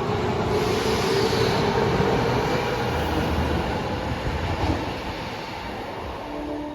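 Subway train running through an underground station, with a steady motor hum in the first couple of seconds; the noise fades away over the last seconds as the train draws off.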